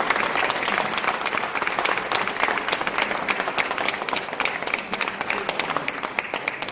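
Congregation applauding with dense, continuous clapping that thins out slightly near the end.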